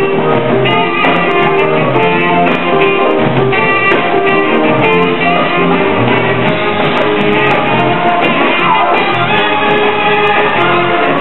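School jazz band playing, a continuous run of held notes without a break.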